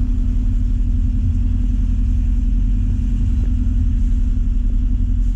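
Boat engine running at a steady speed, a constant low rumble with a steady hum.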